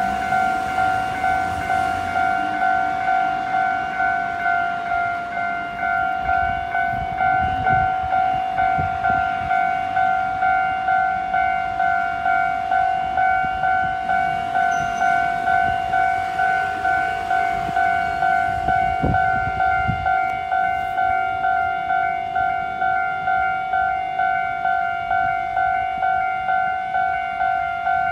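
Railway level-crossing warning alarm ringing, a steady electronic tone pulsing about once a second, with a train's low rumble underneath as it runs through the crossing.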